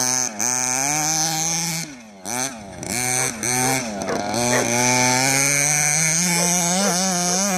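Small two-stroke petrol engine of a 1:6 scale Carbon Fighter RC buggy revving up and down as it is driven, its pitch rising and falling with the throttle. About two seconds in the throttle is shut and the engine drops briefly toward idle, then it revs again in short blips before holding a higher, wavering speed.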